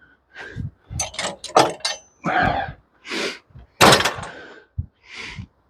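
A series of irregular wooden knocks and clatters, then several short scraping bursts, as lumber is handled and shifted by hand on the sawmill.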